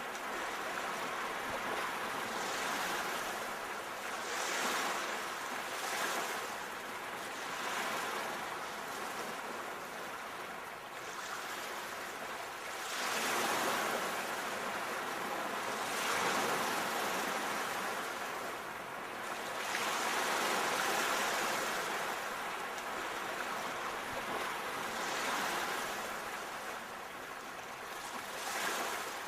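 Sea waves washing onto the shore in a continuous hiss that swells and eases every few seconds.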